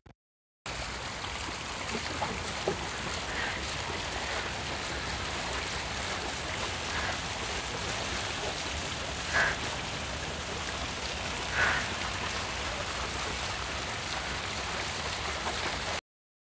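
Water cascading down a fountain wall, a steady even splashing that starts abruptly about half a second in and cuts off suddenly near the end. A few faint short sounds rise briefly above it.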